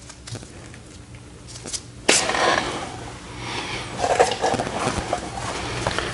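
A sudden knock about two seconds in, then steady scraping and clunking from handling a removed car wheel and shifting on a rolling shop stool over a concrete floor, with a low steady hum underneath.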